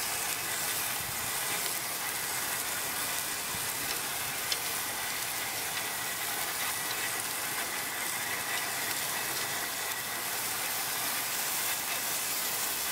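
Olive-oil-marinated zucchini slices sizzling on a gas grill's hot grates, a steady hiss, with one light click about four and a half seconds in.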